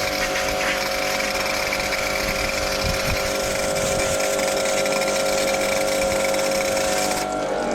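Kärcher K7 pressure washer running on a low-pressure setting: a steady motor-and-pump hum under the hiss of the water spray, cutting off suddenly near the end.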